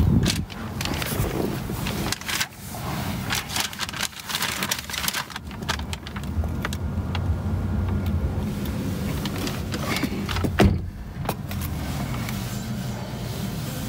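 Clicks, knocks and rustles of handling inside a car cabin over a low steady hum, with one sharp knock about ten and a half seconds in.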